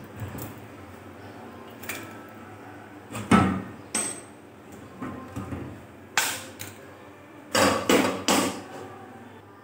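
Lumps of hot charcoal set down one by one into a foil cup on marinated chicken, for smoking it: a series of knocks and clacks, the loudest about three seconds in and a quick cluster near the end.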